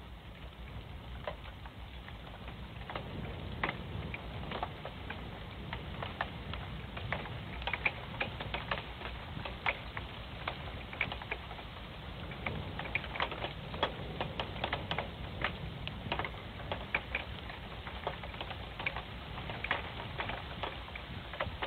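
Heavy wind-driven storm rain, with many irregular sharp ticks of drops striking the webcam housing over a steady hiss and rumble; the ticking thickens a few seconds in.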